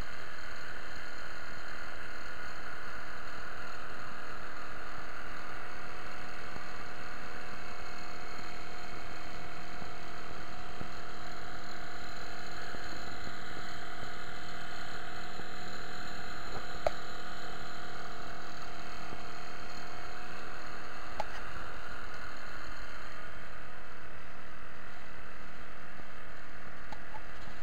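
Small outboard motor on an inflatable boat running steadily under way, a constant engine hum.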